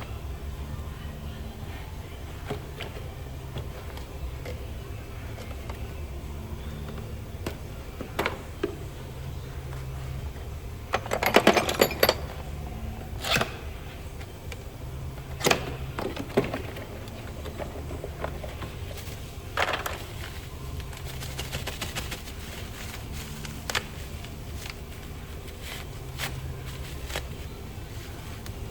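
Scattered clinks and clanks of hand tools being handled and set down over a steady low hum, with a short burst of rattling clatter about eleven seconds in and a few single sharp knocks after it.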